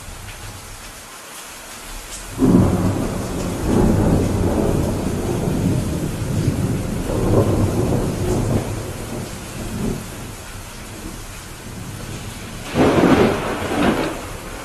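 Steady rain with thunder: a sudden clap about two and a half seconds in that rolls on in surges for several seconds, then a second sharp clap near the end.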